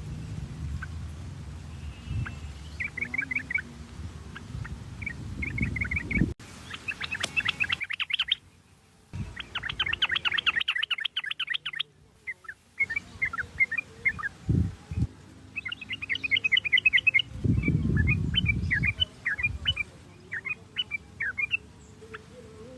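Yellow-vented bulbul (trucukan) song: fast, bubbly chattering runs of quick repeated notes, coming in bursts with short breaks, with a low rumble under some phrases.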